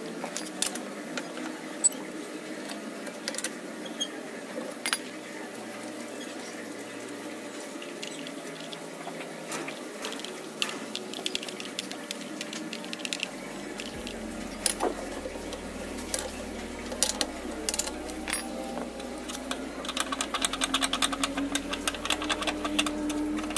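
Scattered metallic clicks and taps of lug nuts and hand tools being handled at a car wheel, then, about twenty seconds in, a fast continuous run of mechanical clicking.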